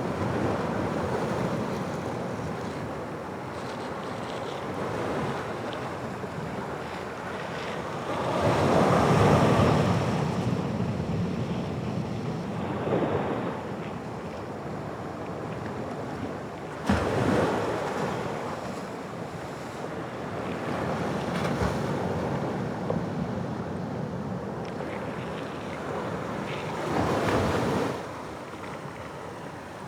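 Atlantic waves breaking on the shore, a steady roar of surf. It swells louder about a third of the way in, comes up sharply with a sudden crash just past halfway, and swells again near the end.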